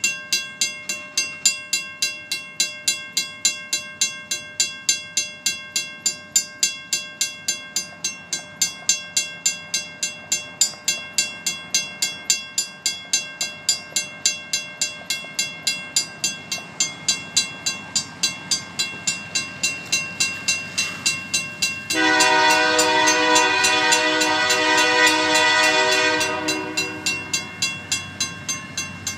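Railroad crossing's WCH mechanical bell ringing in a steady, even stroke rhythm as the crossing is activated. About 22 seconds in, the approaching locomotive's horn sounds one loud chord for about four seconds, drowning the bell, which then carries on.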